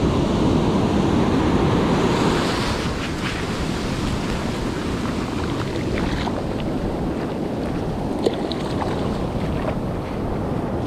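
Surf washing up a sandy beach with wind buffeting the microphone; the wash is loudest in the first two seconds or so, then eases. A single sharp click about eight seconds in.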